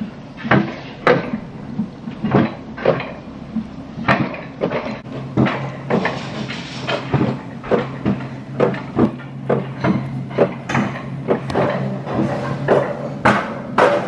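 Bobsled coaster car running down its track, clacking and rattling over the rail joints in quick, uneven knocks, about two or three a second. A steady low hum joins in from about five seconds in until about thirteen seconds.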